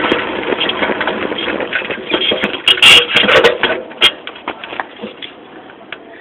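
Saltafoss cross bicycle rolling over rough ground, with a dense rattle and clatter from tyre, chain and frame. A cluster of loud knocks comes about three seconds in, then the rattle grows quieter.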